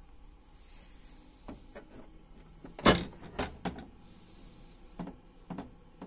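Plastic water tank of a SANG PD12-DAR dehumidifier being pulled out of its housing: a series of plastic clicks and knocks, the loudest about three seconds in.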